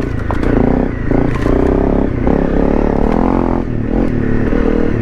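Honda CRF250 Rally's single-cylinder engine revving up and down as the bike is ridden slowly over rough trail, with a few clattering knocks.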